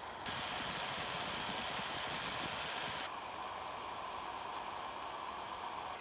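A small screw spinning in a drill press chuck with a flat file held against its head: a loud, even rasping hiss that cuts off abruptly about three seconds in. A quieter steady hiss of sandpaper on the turning part and the running drill follows.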